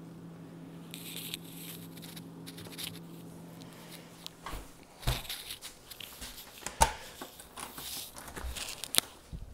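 An open refrigerator hums steadily and low. The hum stops about four and a half seconds in, and the fridge door shuts with a thud just after. A few sharp knocks and handling noises follow.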